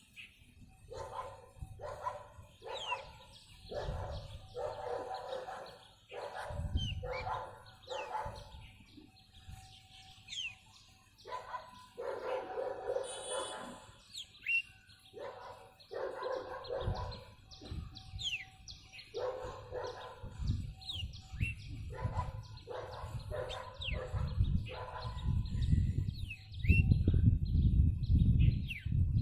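Small birds chirping in quick, high notes while a dog barks over and over, short harsh barks about once or twice a second. A low rumble rises in the last few seconds.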